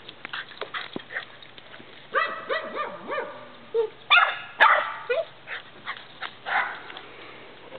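Rat Terrier barking at a buck deer in the yard: a run of short, high-pitched barks that starts about two seconds in, is loudest in the middle and trails off with a few last barks, territorial barking at the intruding deer.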